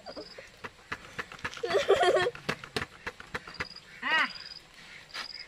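Light clicks and taps of a stick poking smouldering charcoal in a small brick fire pit, with a short high chirp repeating several times. A child's voice is heard briefly about two seconds in and again near four seconds.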